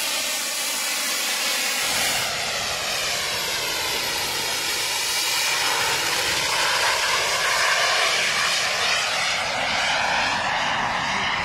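Jet turbines of a Flyboard Air hoverboard running in flight: a loud, steady rushing hiss whose tone sweeps down and back up as the flyer passes overhead and moves off.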